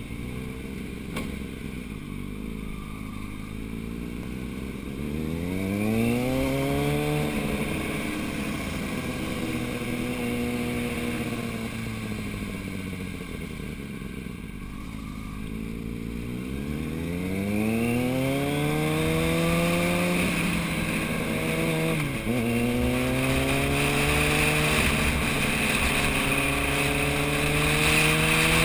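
Motorcycle engine accelerating: its pitch rises about five seconds in, eases off, then climbs again about sixteen seconds in, dips briefly a few seconds later and runs on at a steady, slowly rising pitch near the end.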